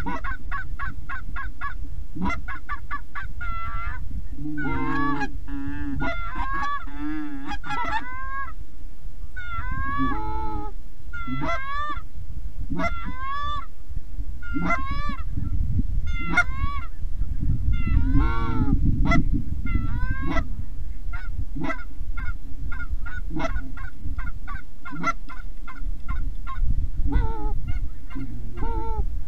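Canada geese honking and clucking: many short calls, some in fast runs and some drawn out, over a steady low rumble.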